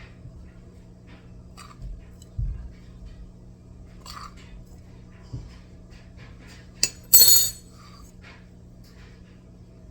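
Scattered light clinks and taps of small objects being handled, then a sharp click and a brief hissing rustle about seven seconds in.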